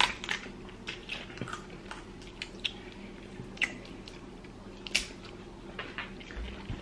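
Boiled blue crab being cracked and picked apart by hand: scattered sharp snaps of shell, the loudest about five seconds in, with soft wet sounds and chewing.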